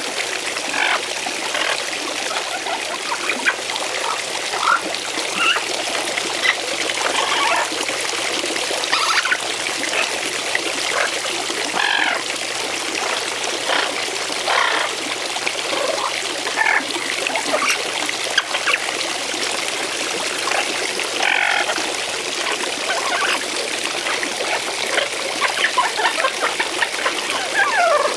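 Garden fountain's stream of water splashing steadily into its basin, with an Amazon parrot's short chirping calls scattered over it as the bird bathes in the spray.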